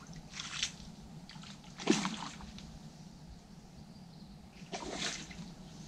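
A hooked tench splashing and thrashing at the surface in the margin as it is played: three short splashes, the loudest about two seconds in.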